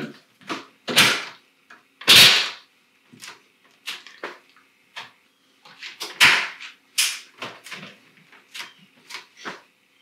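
Plastic screwless switch cover plate being pressed and snapped onto its mounting subplate: a string of sharp plastic clicks and knocks, with louder scraping snaps about 1, 2 and 6 seconds in.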